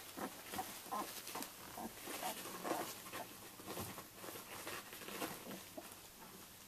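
Twelve-day-old Samoyed puppies making many small, irregular grunts and squeaks as they crawl over one another, with faint rustling of the bedding.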